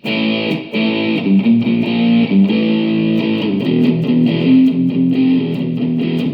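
Electric guitar played through an iRig into a guitar amp, with the AmpliTube app's gain effect switched on: a run of held chords that change every half second or so.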